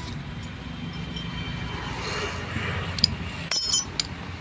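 Steel differential gear parts of a truck clinking as they are handled and fitted into the carrier: one click about three seconds in, then a quick cluster of metallic clinks with a short ring near the end. A steady low background rumble runs underneath.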